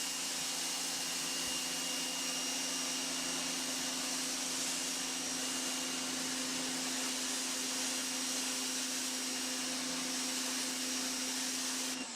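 Homdox 1800 W electric pressure washer running steadily, its motor and pump humming under the hiss of a green 25° fan-spray tip blasting concrete. The hum cuts off near the end as the trigger is let go.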